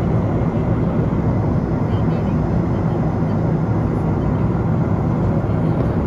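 Steady low rumble of background noise with indistinct voices mixed in.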